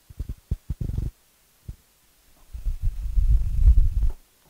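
Deep, dull rumbling and thumping of clothing rubbing against a clip-on microphone while an arm works along the model: a few short thumps in the first second, then a longer rumble near the end.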